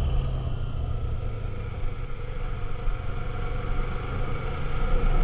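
Motorcycle engine running steadily while riding at road speed, with wind and road noise rushing over the microphone. The sound eases a little partway through and picks up again near the end.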